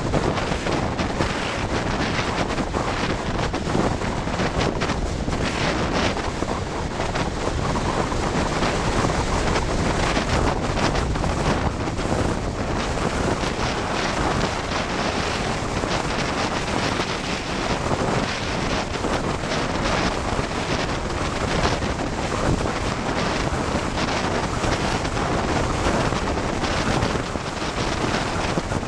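Wind buffeting the microphone during a fast bicycle descent, a steady, loud rush of noise with constant fluttering.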